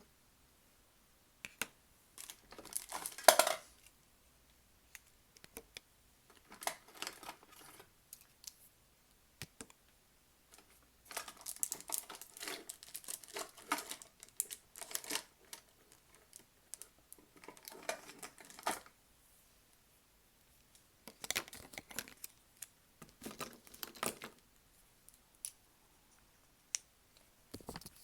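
Paper and a microphone being handled up close as the microphone is fixed to the sheet: irregular bursts of rustling, crinkling and scraping with quiet gaps between, and a few sharp clicks.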